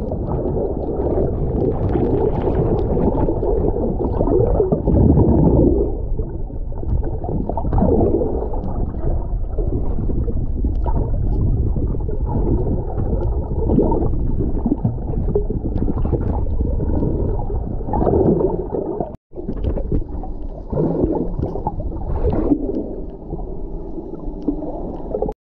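Muffled underwater sound through a submerged action camera's housing: steady low sloshing and gurgling of water, with a brief sudden cutout about three-quarters of the way through.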